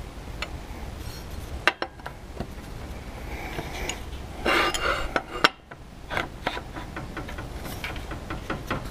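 Steel parts of a tractor seat support clinking and knocking against each other and on a steel welding table as they are fitted together by hand. There are scattered light metallic clicks, with a short scrape of metal on metal about four and a half seconds in.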